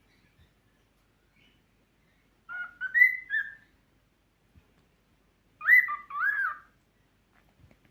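Cockatiel whistling two short phrases of clear pitched notes, one about two and a half seconds in and one about five and a half seconds in, the second with notes that rise and fall.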